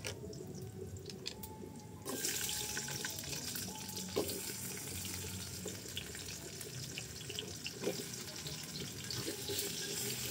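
Cassava pieces dropped into hot oil and browned garlic in a wok, sizzling with a loud, steady hiss that starts suddenly about two seconds in. Before that, only a faint crackle of the garlic frying.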